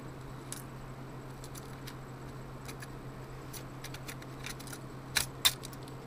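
Small metallic clicks and taps as a laptop's copper heat-pipe CPU cooler with metal screw brackets is worked down into its seat over the processor, with two sharper clicks about five seconds in. A steady low hum runs underneath.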